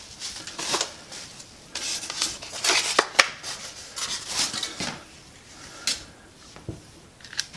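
Plastic bubble wrap rustling and crinkling as it is pulled out of a polystyrene packing box and put down, in irregular bursts with a couple of sharp clicks about three seconds in.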